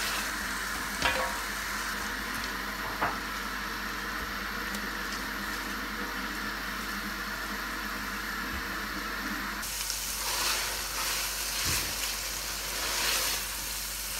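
Lamb pieces sizzling in oil in a stainless steel karahi pan as freshly added yogurt is stirred in with a silicone spatula, the bhuna stage of the karahi. A couple of light knocks of the spatula early on, and the stirring and sizzling get louder and brighter in the last few seconds.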